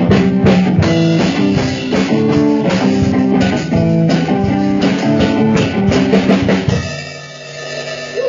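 Drum kit and guitar playing a rock jam together. About seven seconds in the drums stop and a last guitar chord rings on, fading out as the piece ends.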